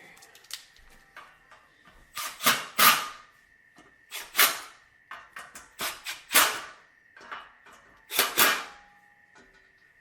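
A run of short, loud metallic scrapes and knocks, mostly in close pairs, about every two seconds, as metal parts and tools are handled during the wood stove insert installation.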